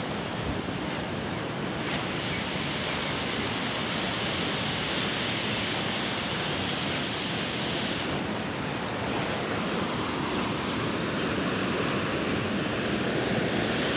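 Muddy floodwater rushing steadily through a canal in spate, churning and foaming as it pours between bridge piers.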